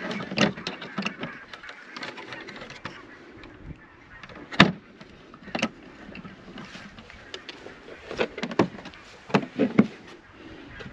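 Clicks and knocks of a plastic Systainer-type chainsaw storage case being handled. The loudest knock comes about four and a half seconds in, with a cluster of clicks near the end.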